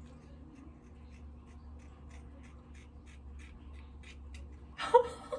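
Scissors snipping through long hair in a steady run of short, crisp snips, about three a second. Near the end a short vocal sound cuts in, the loudest thing here.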